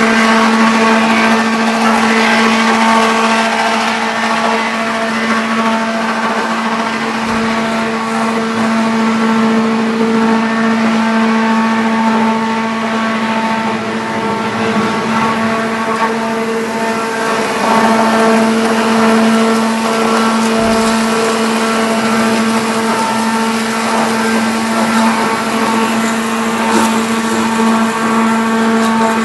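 Log Eater wood-waste shredder running, turning forest waste into sawdust: a steady droning hum over rough noise, easing slightly about halfway through before picking up again.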